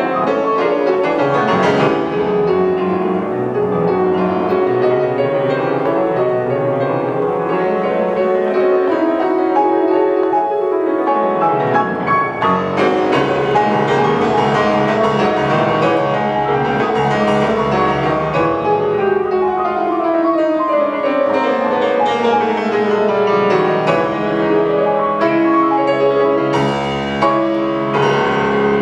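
Piano music: a piano playing dense passages with fast runs of notes that sweep down and up.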